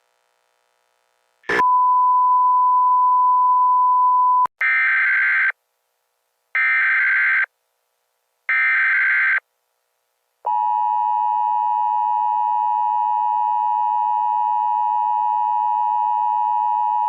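Emergency Alert System signalling. After a click, a steady single tone near 1 kHz sounds for about three seconds. Then come three short buzzing data bursts, about a second apart: the SAME header. About ten seconds in, the two-tone EAS attention signal starts and holds steady.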